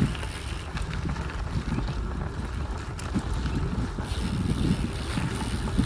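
Wind buffeting the microphone of a camera carried on a moving bicycle: a steady low rumble with irregular gusty flutter.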